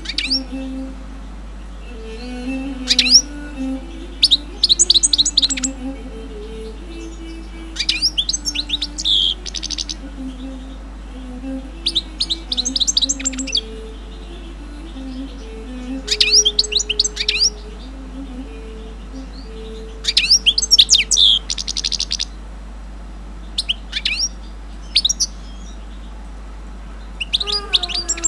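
Caged songbird singing short phrases of rapid high chirps and trills, one phrase about every four seconds.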